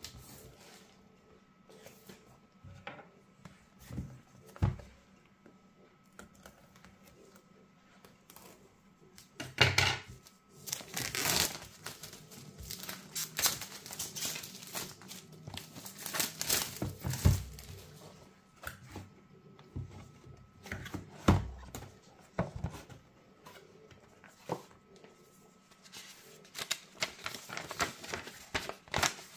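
Plastic shrink-wrap being torn and peeled off a cardboard box, crinkling loudly in a long stretch in the middle, with a few knocks of the box being handled beforehand. Near the end a folded paper leaflet rustles as it is opened.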